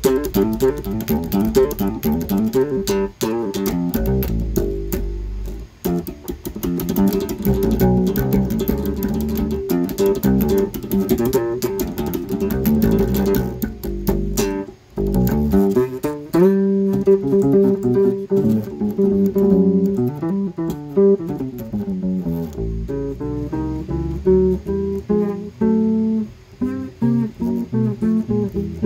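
Electric bass guitar played solo: a steady run of plucked notes with string clicks, briefly broken off about halfway, then continuing with slides between some notes.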